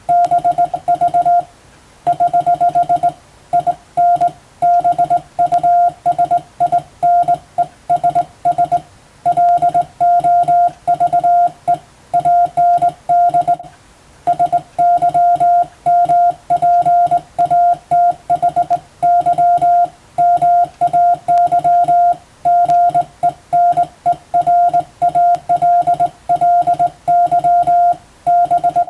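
Hand-sent Morse code (CW): one steady tone keyed on and off in dots and dashes, grouped into letters and words, with a slightly longer break about halfway through. It is practice telegram text in Latin-alphabet Morse for radiotelegraph exam receiving practice.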